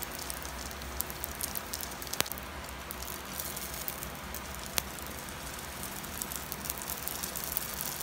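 Hotteok dough frying in shallow oil in a nonstick pan: the oil sizzles and crackles steadily. Two sharp clicks stand out, about two seconds in and again near five seconds in.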